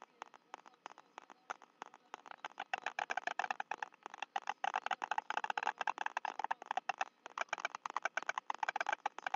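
White storks clattering their bills: a rapid, wooden rattle of clicks, faint at first and loud from about two and a half seconds in. It is the greeting display of a pair meeting at the nest.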